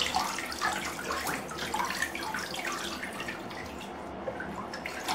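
Bathwater sloshing and splashing in a tub as a wet cat is dunked and held in it, with short irregular splashes throughout.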